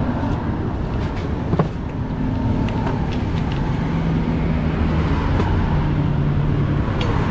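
Road traffic running close by: a steady noise bed with the hum of passing engines, and a single sharp click about a second and a half in.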